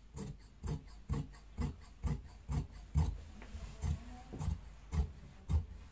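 Large tailor's shears cutting through trouser cloth laid flat on a table, snipping in a steady rhythm of about two cuts a second.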